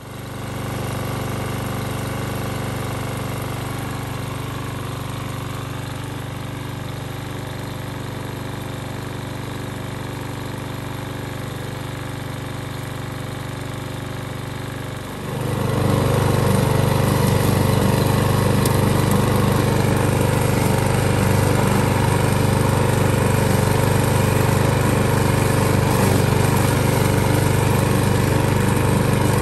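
Briggs & Stratton E-series engine of a Toro 21-inch recycler push mower running steadily at full speed, just cleared of an oil hydrolock. About halfway through it gets louder and rougher as the mower cuts grass.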